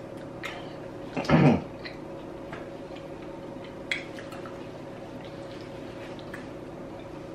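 Quiet eating and mouth sounds: scattered small clicks and a brief, louder muffled sound about a second in, over a steady electrical hum.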